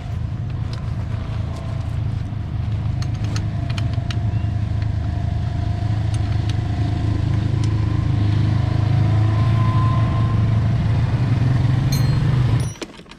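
Single-cylinder dual-sport motorcycle engine running steadily while riding, growing a little louder past the middle, then cutting off suddenly near the end.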